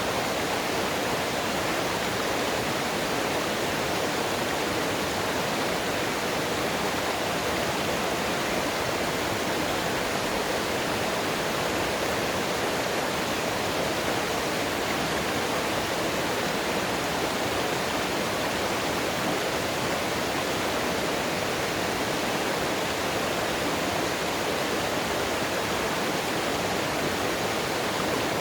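Mountain stream water rushing and splashing over rocks, a steady, unchanging rush.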